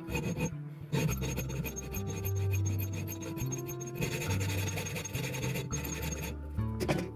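Hand hacksaw cutting stainless steel clamped in a bench vise: a rapid run of back-and-forth rasping strokes that stops shortly before the end.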